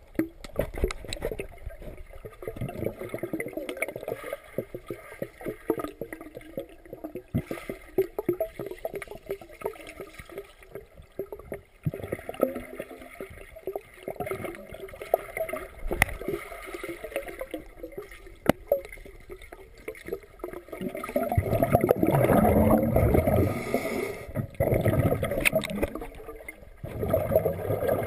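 Muffled underwater water noise picked up by a camera submerged in a swimming pool: bubbling and sloshing with scattered clicks as swimmers move through the water, louder and churning from about three quarters of the way in and again just before the end.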